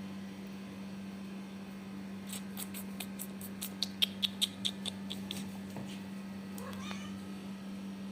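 Street cat chattering: a quick run of sharp, high chirps, about five a second, then a short rising meow near the end.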